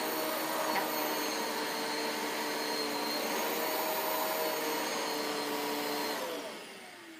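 Riccar upright vacuum cleaner running steadily on carpet, with a high whine over its motor hum. About six seconds in it is switched off and the motor winds down, its pitch falling as it fades.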